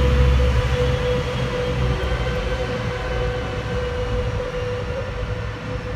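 Metrolink F125 diesel locomotive pulling a commuter train away. Its deep engine rumble drops off sharply about half a second in and then fades as it recedes, over a steady high whine.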